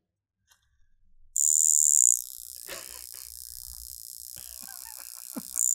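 Vintage Bulova Wrist Alarm watch's alarm going off: a high, rasping buzz made by the alarm hammer striking a post, with the case back acting as a sounding board to make it louder. It starts suddenly about a second and a half in, loud at first, drops to a softer buzz, and grows loud again near the end.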